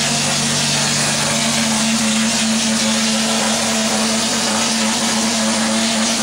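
A motor-driven machine running steadily, a constant hum with a hiss over it.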